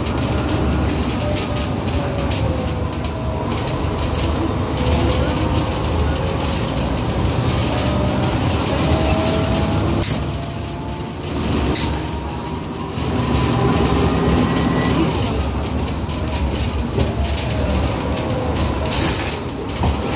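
Cabin noise of a Hong Kong double-decker bus on the move: a steady low engine and road rumble with a whine that glides up and down in pitch as the bus changes speed, plus occasional rattles. The sound eases off for a couple of seconds about halfway through.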